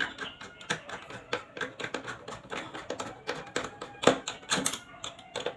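Irregular clicking and tapping of hands and tools working a wall power outlet and its wires, with a couple of louder knocks about four seconds in.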